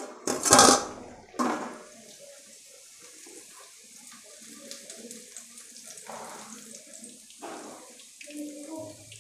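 Puri deep-frying in hot soybean oil in a kadhai, a steady crackling sizzle. There are two loud bursts in the first two seconds. Near the end a slotted spoon works in the oil.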